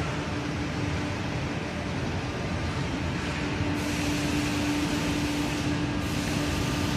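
1988 Aschersleben SZ 2000x1500x9000 guideway grinding machine running, its grinding wheel working along a machine bed's steel guideways: a steady machine hum with a held tone, and a higher hiss that comes in about four seconds in.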